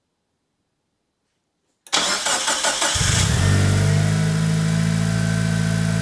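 Near silence, then about two seconds in a Mitsubishi Lancer Evolution VI's turbocharged 2.0-litre 4G63 inline-four cranks over briefly on the starter, catches and settles into a steady idle. It is idling on a newly fitted idle air control valve, seemingly smoother than the rough idle the old valve gave.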